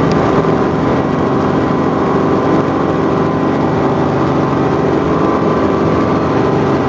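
Helicopter cabin noise in flight: the engine and rotor making a loud, steady drone with a constant low hum.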